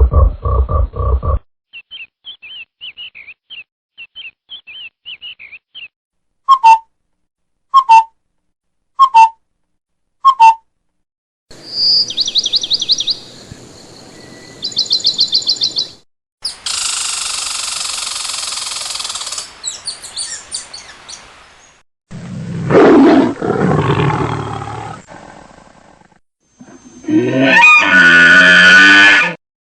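A run of different animal calls one after another: low pulsed grunting that stops in the first couple of seconds, small bird chirps, four short separate calls, fast high bird trills, then a loud roar and a last loud call near the end.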